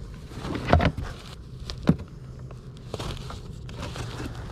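Hands rummaging through small objects in a cardboard box, lifting out a fabric pouch: rustling and handling noise, with a few sharp knocks as things tap together, the loudest about two seconds in.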